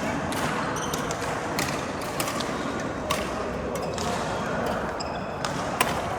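Badminton rally on an indoor court: sharp racket strikes on the shuttlecock every half second to a second, mixed with short high shoe squeaks on the floor, over a steady hall background.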